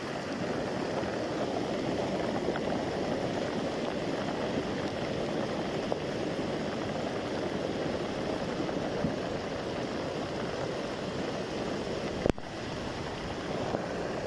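Muddy floodwater rushing and churning in a steady, continuous wash, with water pouring over a bank. A single sharp click about twelve seconds in.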